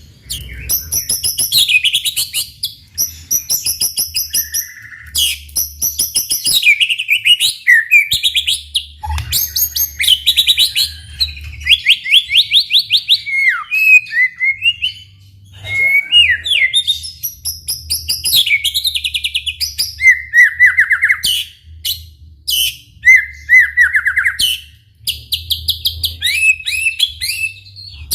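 White-rumped shama singing energetically: a long run of varied phrases made of fast trills and rapidly repeated high whistled notes, separated by brief pauses.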